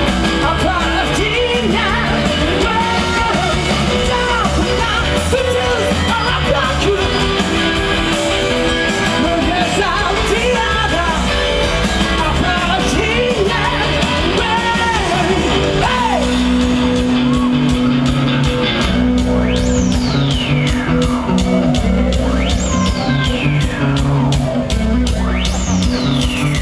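Rock band playing live: a sung vocal over guitar, bass and drums, giving way about two-thirds in to an instrumental stretch of held guitar notes and several falling pitch slides over a steady beat.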